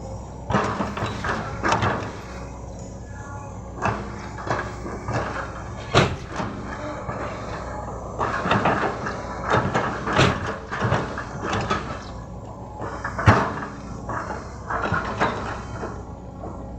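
Excavator engine running steadily under repeated irregular knocks and clanks from the working machine. The loudest knocks come about six, ten and thirteen seconds in.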